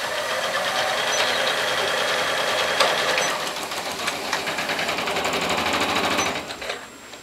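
Janome 12000 sewing machine stitching at a fast, steady speed, then stopping near the end.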